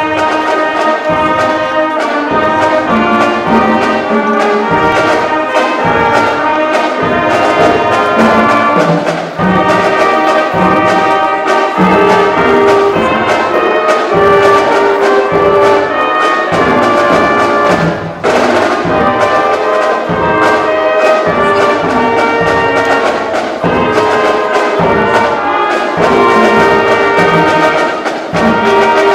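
Brass band playing processional music, held notes over a steady beat, as the gowned faculty march in.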